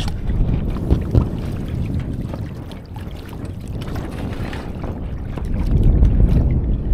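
Wind buffeting the microphone over water rushing along the hull of a WindRider 17 trimaran under sail, a low rumbling wash that swells near the end. A couple of short knocks come about a second in.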